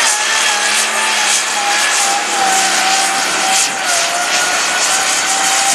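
Turbocharged diesel engine of an International light super stock pulling tractor running flat out under full load as it drags the weight sled, with a steady whine held over the engine noise.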